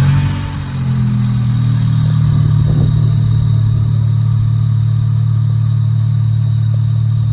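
A 2004 Honda Civic EX's 1.7-litre four-cylinder engine, fitted with freshly installed aftermarket stainless headers, idling just after starting. Its speed settles from the start-up flare within the first second into a steady idle.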